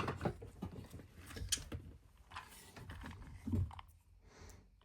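Handling noise from small boxes and watch parts: scattered light clicks, knocks and rubbing, with a few soft thumps.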